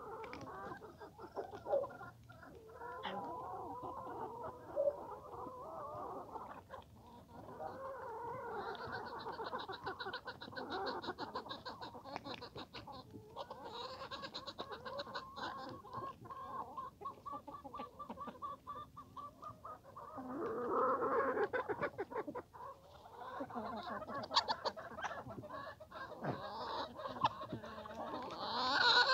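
A flock of hens clucking continuously, many birds calling over each other, growing louder for a couple of seconds about two-thirds of the way through.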